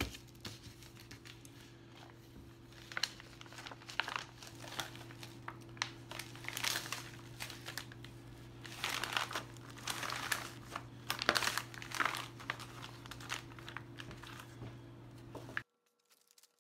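A plastic vacuum-sealer bag crinkles and rustles in irregular bursts as a brisket is slid into it and the bag is handled. A steady low hum runs underneath. About a second before the end, everything cuts off suddenly.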